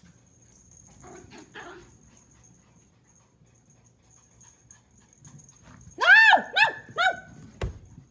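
Pomeranian puppy giving three quick, high-pitched barks near the end, each rising and falling in pitch, followed by a sharp click; faint rustling earlier on.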